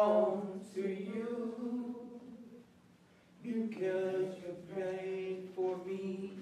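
A teenage boy and a man singing a slow song together without accompaniment, holding long notes, with a short pause about three seconds in.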